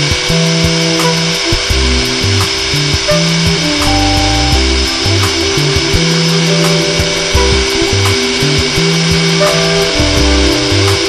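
Background music with shifting synthesizer notes, over a steady high-pitched whine from the F-117A Nighthawk's General Electric F404 turbofan engines idling.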